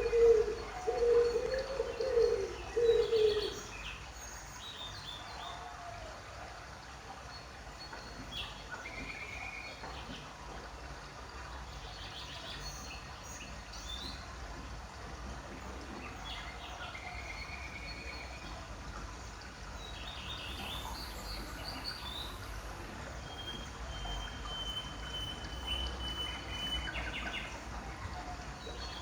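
Songbirds chirping now and then, with one long whistled note about two-thirds of the way in. A dove coos several times in the first few seconds, over a faint steady background noise.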